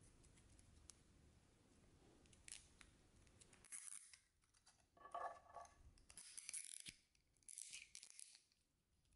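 Nylon zip tie being threaded through a plastic mount and pulled through its ratchet head: several short rasps and clicks, starting about a third of the way in.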